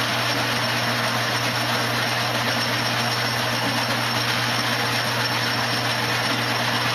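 A 1938 South Bend lathe running steadily, a boring bar taking a deep internal cut under the slowest carriage power feed: an even machine hum and hiss with no breaks.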